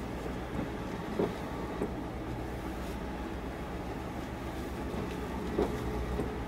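Steady low mechanical hum of harbour ambience beside moored steel fishing boats, with a few faint knocks about a second in and again near the end.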